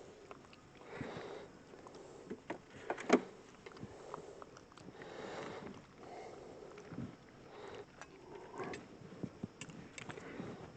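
Beekeeping equipment being handled, with scattered knocks, clicks and rustling scrapes as wooden hive parts are worked. One sharp knock about three seconds in is the loudest.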